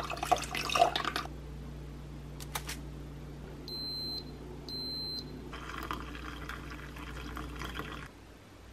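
Cuisinart drip coffee maker: clicks and clatter of its lid being handled, two short high beeps about four seconds in, then a hiss and gurgle of water from about five and a half seconds, over a steady low hum.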